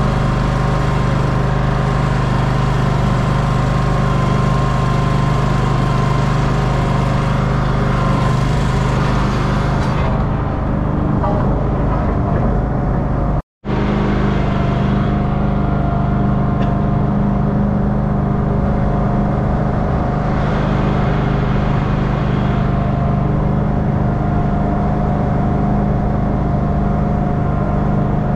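Engine of a ride-on roller running steadily while rolling stone in on a driveway. The sound cuts out abruptly for a moment about halfway through, then carries on at the same steady pitch.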